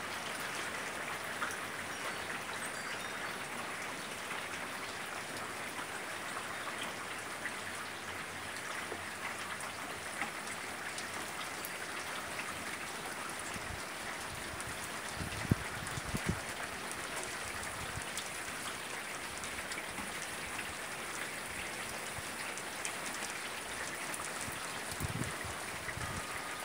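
Steady rain falling, an even hiss of countless drops, with a few short low thumps about halfway through and again near the end.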